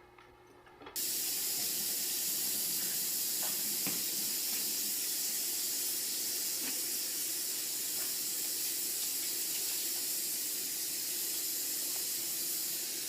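Tap water running steadily into a sink, switched on abruptly about a second in.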